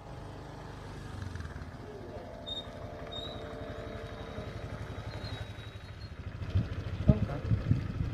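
Automatic scooter's engine running as it rides toward the microphone, growing louder, with a few short knocks near the end as it pulls up.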